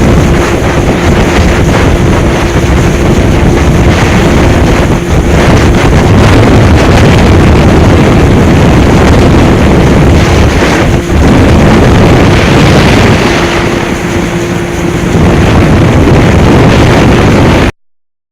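Heavy wind buffeting the microphone on an open pontoon boat, a loud rushing roar with a faint steady hum under it. It cuts off suddenly near the end.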